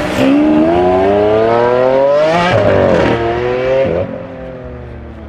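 Tuned Audi RS6 Performance's twin-turbo V8, through an Akrapovic exhaust, accelerating hard. Its pitch climbs for about two and a half seconds, drops at a gear change, and climbs again. About four seconds in the throttle is lifted and the engine settles to a quieter, steady lower note.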